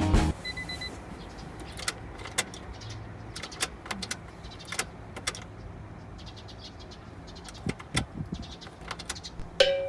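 Scattered sharp clicks and small knocks of handling over a low steady hum. Near the end comes one louder sharp hit with a brief ringing tone.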